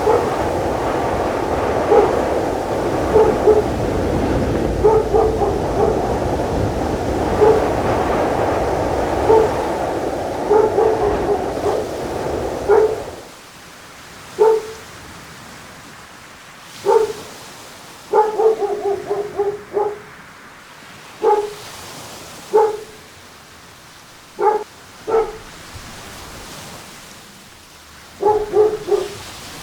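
A dog barking again and again, in single barks and short runs, over a loud steady rushing noise. About 13 seconds in, the rushing noise cuts off, leaving the barks over a much quieter background.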